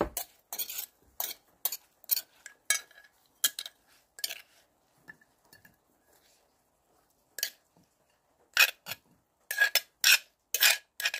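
A spoon scraping and clinking wet pounded salad out of an earthenware mortar onto a ceramic plate: a quick run of short scrapes, a pause of a few seconds, then another run near the end.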